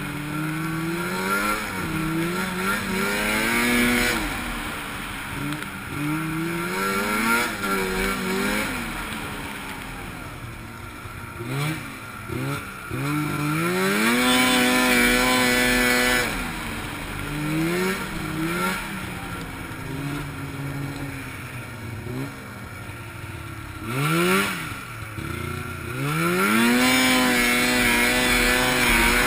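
A 2004 Arctic Cat Firecat F6 Sno Pro EFI snowmobile's 600cc two-stroke twin engine, heard up close from the rider's seat, revving up and easing off again and again as the sled is ridden around a track. A steady hiss runs underneath.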